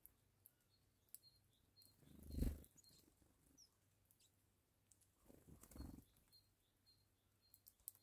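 Near silence with faint, short, high chirps from small birds, repeated here and there. Two soft rushing swells stand out, the louder one about two and a half seconds in and a weaker one near six seconds.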